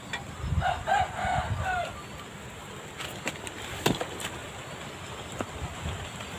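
A chicken clucking, a few short pitched calls in the first two seconds, followed by scattered light clicks and knocks of handling, one sharper knock near the middle.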